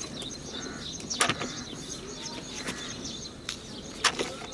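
Birds chirping repeatedly, with a few sharp snaps as okra (bhindi) pods are cut up by hand; the loudest snaps come about a second in and near the end.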